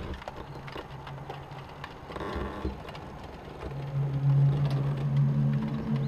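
Unexplained low droning hum of the kind reported as 'sky trumpets', with a steady low tone and a fainter one about an octave above, heard through a roof window as it is pushed open. It grows louder about four seconds in, with light knocks from handling the window frame.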